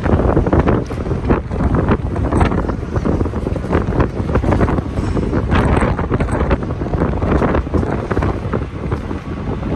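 Wind buffeting the microphone over loud city street noise, with scattered short knocks and clicks.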